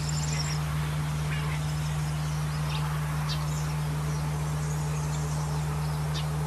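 Scattered short, high bird chirps over a steady low hum.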